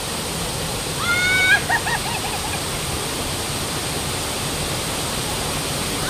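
River water rushing steadily over a series of small waterfalls. About a second in, a brief high-pitched call rings out over it.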